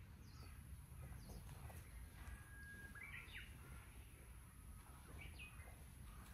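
Faint small birds calling: a few scattered short chirps and one thin, steady whistle about two seconds in, over a low steady rumble.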